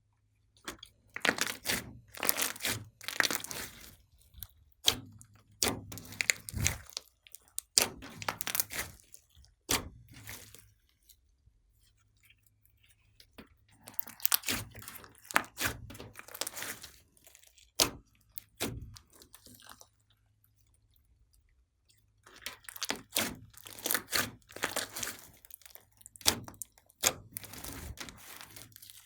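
Slime being pressed and squished by hand, giving bouts of crunchy crackling and popping separated by short pauses.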